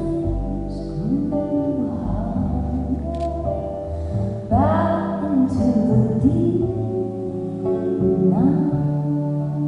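A slow song performed live: singing over sustained instrumental chords with some plucked guitar.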